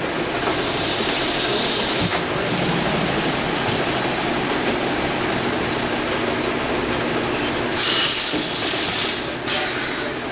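Six-head automatic net weigh filling machine running: a steady mechanical noise with bursts of high hissing, one about two seconds long near the start and two shorter ones near the end.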